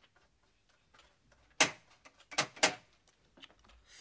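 Three sharp knocks: one about a second and a half in, then a quick pair about a second later.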